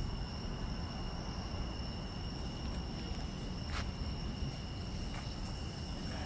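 A steady, high-pitched chorus of night insects trilling over a low background rumble, with one faint click a little past halfway.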